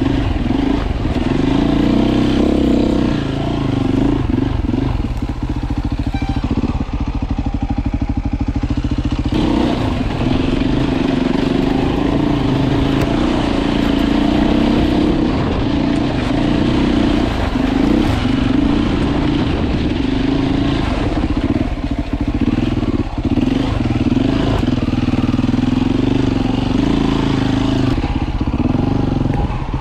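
Beta RR 450 enduro bike's single-cylinder four-stroke engine running at low to middle revs while it is ridden slowly over rocky trail, the revs rising and easing off with the throttle.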